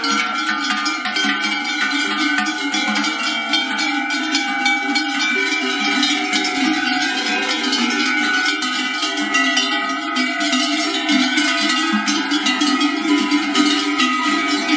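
Many cowbells on a herd of walking cattle, clanging continuously with overlapping ringing tones as the cows pass close by.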